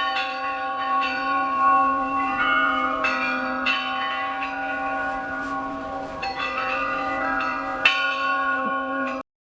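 Eerie bell-like tones for a graveyard sound effect, struck again several times and ringing on over a steady low tone, cut off abruptly near the end.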